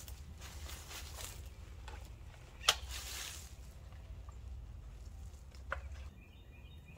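Footsteps rustling in dry leaf litter, then a single sharp snap of wood a little under three seconds in and a fainter click near the end, over a low steady rumble.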